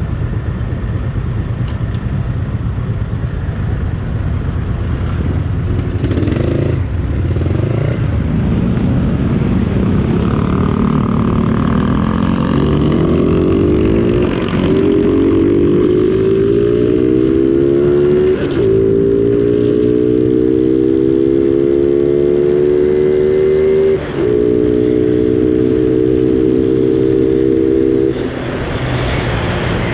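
Yamaha Sniper 135's single-cylinder four-stroke engine through a Replica Pro aftermarket exhaust, accelerating hard at full throttle: the exhaust note climbs steadily in pitch, breaks briefly at three upshifts in the second half, and drops off as the throttle closes near the end.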